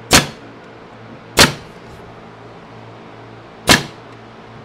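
Nail gun firing three single shots into the corner of an oak cabinet box: sharp cracks, the first two about a second apart and the third about two seconds later.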